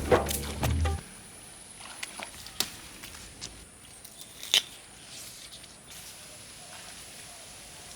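Background music that stops about a second in, followed by a quiet outdoor background with a few scattered light clicks and taps, the sharpest about halfway through.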